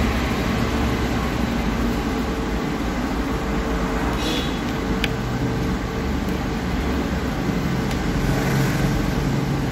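Steady background hum and hiss, with a faint click about five seconds in.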